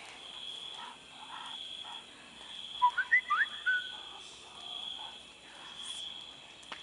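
Steady high trilling of night insects, with a short burst of about five quick whistled chirps from a frog or bird about three seconds in, the loudest sound here.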